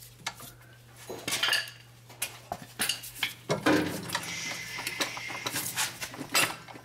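Hand tools clinking and tapping on steel as the last nut is worked off the transfer-case mounting: a run of sharp, irregular metallic clinks, with a short steadier rasp near the middle.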